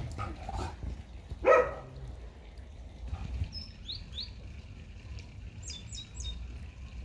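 Outdoor birds calling: one short, louder, lower call about a second and a half in, then two quick high chirps and, near the end, three falling high chirps in quick succession, over a low rumble.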